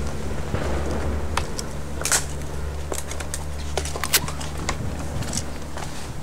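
Footsteps crunching over dry twigs and brush, with a scatter of sharp snaps and crackles, the loudest about two and four seconds in, over a low steady drone.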